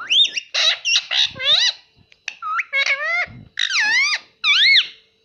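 Ring-necked parrot squawking in a rapid series of loud, sharp calls that swoop up and down in pitch, in several bursts.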